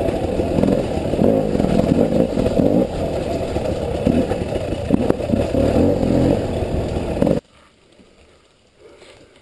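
A 300cc two-stroke enduro dirt bike engine revving hard and unevenly over rough ground, with a few sharp knocks, until it cuts off suddenly about seven and a half seconds in, leaving only faint background.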